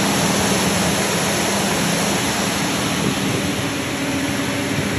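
Cementing pump truck running with its recirculating pump moving water: a steady, dense rushing noise with a low hum underneath.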